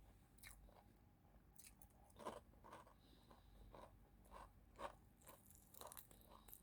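Close-miked eating: a person chewing and crunching food, a string of faint, irregular crunches and moist mouth clicks, with the strongest crunches about two and five seconds in.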